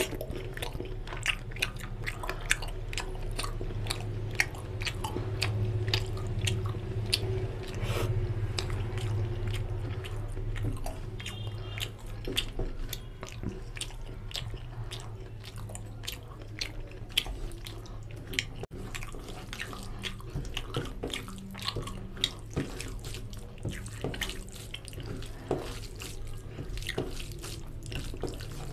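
Close-miked wet chewing and mouth smacking of chicken curry and rice, with many short sticky clicks. Fingers squish rice into the oily curry on a steel plate. A steady low hum runs underneath.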